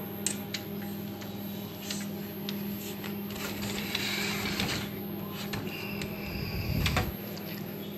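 Plastic clicks, knocks and rubbing from a Xerox WorkCentre IBT (intermediate transfer) belt unit being handled just after it is pulled out of the copier, over a steady low hum. A heavier knock comes near the end.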